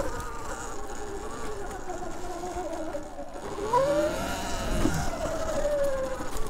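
Whine of an electric two-wheeler's motor, rising in pitch as it speeds up a little under four seconds in, then falling away again, over a low rumble.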